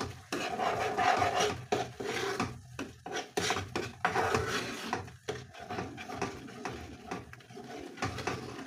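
A spatula stirring a thick sauce in a granite-coated frying pan, with repeated scraping strokes against the pan, each broken off by a short pause.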